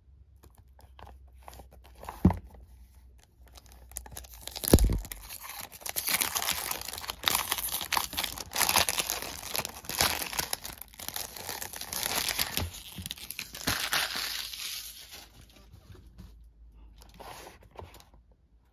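Clear cellophane wrap being torn open and peeled off a cardboard perfume box, a long stretch of crinkling and crackling plastic. Two sharp snaps come in the first five seconds, the second the loudest sound.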